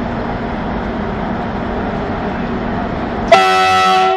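CFR electric locomotive 461-055 running with a steady hum as it moves along the platform, then a loud horn blast starting sharply about three seconds in and lasting under a second.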